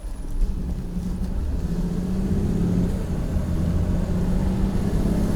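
Car engine running as the car pulls away and gathers speed, with a steady low drone whose pitch lifts a little about two seconds in.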